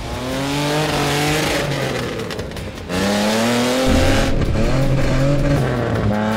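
Monster truck engine revving hard as the truck accelerates. Its pitch climbs in repeated sweeps over a loud rushing noise, and the sound changes abruptly about three seconds in.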